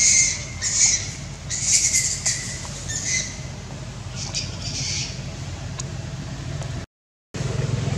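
Short, high-pitched squawking animal calls, about six of them in the first five seconds, over a steady low hum.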